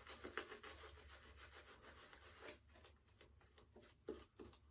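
Faint, quick swishing strokes of a lather-loaded shaving brush rubbed over the face, working up shave soap lather.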